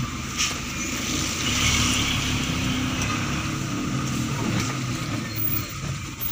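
A vehicle's engine running steadily in slow stop-and-go traffic, heard from inside the cab, with a steady hiss of rain and wet road.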